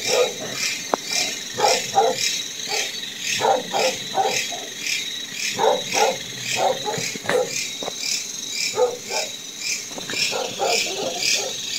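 Crickets chirping in a steady pulse about three times a second, with dogs barking on and off over them in short bursts.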